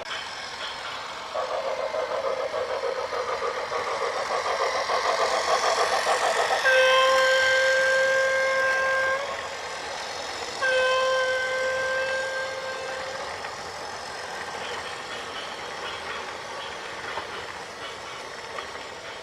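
A heavy vehicle's rumble builds up, then a vehicle horn sounds two long, steady blasts of about two and a half seconds each, with a short gap between them, as the rumble fades away.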